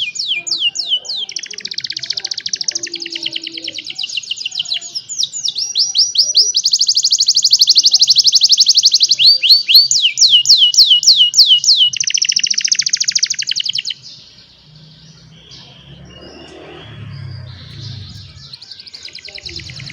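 Young canaries singing: fast, high trills and runs of quick sweeping notes, loud for about fourteen seconds, then dropping to a much softer stretch with some low rumble before the song picks up again near the end.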